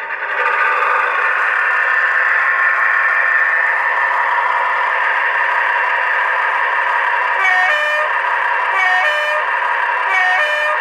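Digitally sampled British Rail Class 22 diesel locomotive sound from a LokSound V4 decoder in an OO-gauge model: the diesel engine running steadily. In the second half the two-tone horn sounds three short times, each a high note falling to a low one.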